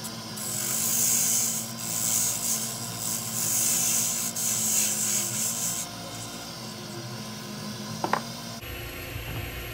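Lathe motor humming steadily while a hand-held blade scrapes the back edge of the spinning ebonite workpiece beside its threads, a hissing scrape that stops about six seconds in and leaves the motor hum.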